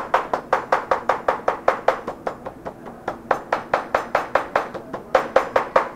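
Knife chopping raw duck meat on a cutting board in a quick, even rhythm of about five strikes a second, mincing the meat for laap.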